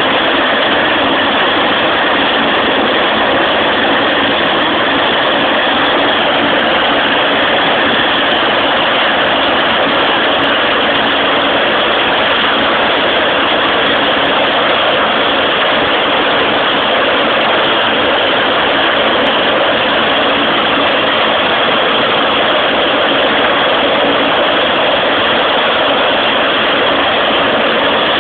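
Rescue helicopter running on the ground with its rotor turning: a loud, steady mix of turbine engine and rotor noise that holds unchanged.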